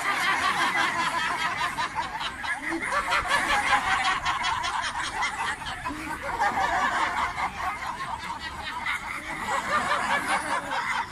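A large group of men, women and children laughing together on cue, many voices chuckling at once in a laughter yoga exercise.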